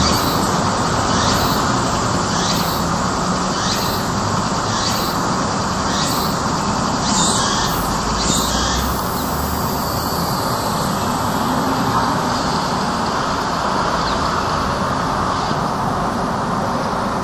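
Street ambience: a steady wash of traffic noise, with a regular clack about once a second through the first half that then fades away.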